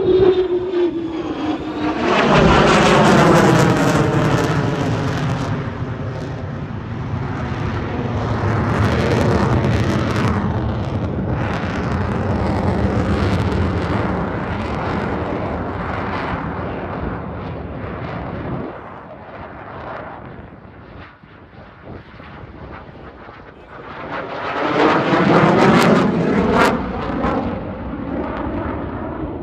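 Boeing F-15QA twin-engine fighter jet, with General Electric F110 turbofans, flying display passes. The jet roar falls in pitch at the start as it goes by, stays loud for most of the time, fades about two-thirds of the way through, then swells again near the end as it comes round.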